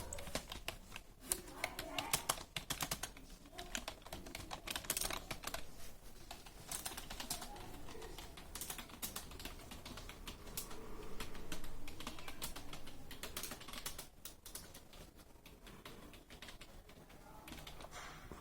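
Fast touch-typing on a computer keyboard: a rapid, irregular run of key clicks that thins out and gets quieter near the end.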